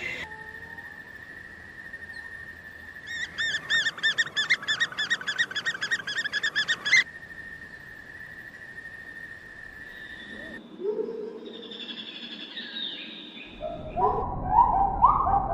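Bird calls in several short stretches. About three seconds in comes a fast run of high, repeated chirping notes lasting some four seconds, over a steady high tone. Near the end come louder, lower calls one after another.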